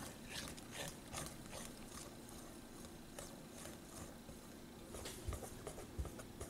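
Wire whisk stirring cocoa powder into condensed milk in a glass bowl: faint, soft rhythmic strokes, about two or three a second, with a couple of low bumps near the end.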